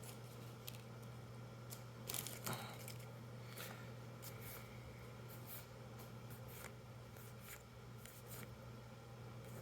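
Magic trading cards and a booster-pack wrapper being handled: soft scattered rustles and little clicks, with a louder rustle about two seconds in, over a steady low hum.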